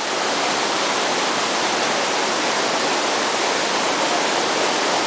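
River rapids rushing: a steady, even wash of churning whitewater.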